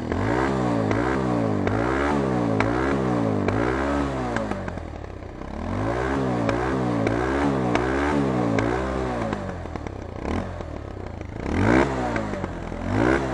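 Bajaj Pulsar 220's single-cylinder engine revved through its stock exhaust: quick throttle blips, about one every three-quarters of a second, in two runs, then a few single blips near the end.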